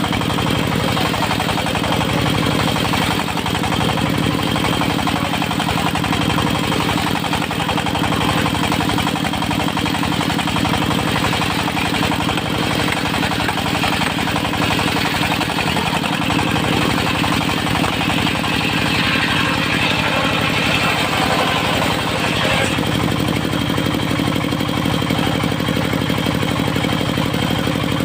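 Diesel engine driving a portable circular sawmill, running steadily at constant speed, with a brighter rasping hiss joining in for a few seconds past the middle.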